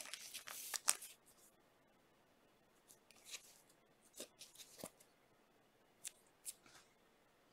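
Faint crisp rustling and light clicks of glossy trading cards being handled and flicked through by hand. There is a short burst of card stock sliding against card stock in the first second, then scattered single clicks and scrapes.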